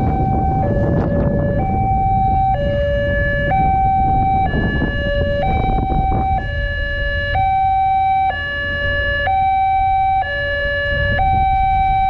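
Railway level-crossing warning alarm from the horn speakers on the crossing signal post: an electronic two-tone signal that switches steadily between a higher and a lower note, each held just under a second. It sounds while the barrier is down, warning of an approaching train. Beneath it runs a low rumble that eases about halfway through.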